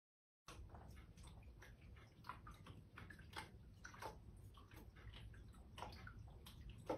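Water in a small home aquarium splashing and dripping faintly, with irregular small splashes over a low rumble. It starts about half a second in, and the loudest splash comes near the end.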